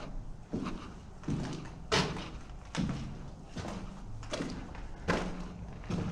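Footsteps walking at a steady pace inside an underground air raid shelter: about eight steps, a little over one a second, each with a short echo.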